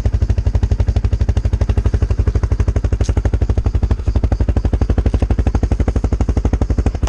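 Quad bike (ATV) engine idling close by, an even, rapid chuffing of about a dozen exhaust beats a second.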